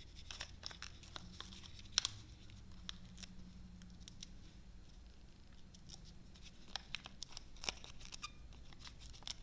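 Hands handling card stock and paper pieces on a craft table: scattered light clicks, taps and paper rustles, with a sharper click about two seconds in, over a faint steady low hum.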